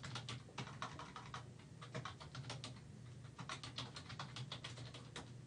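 Computer keyboard typing: faint runs of quick keystrokes with short pauses between them.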